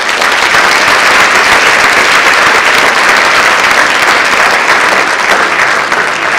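Audience applauding, a steady dense clapping that eases a little near the end.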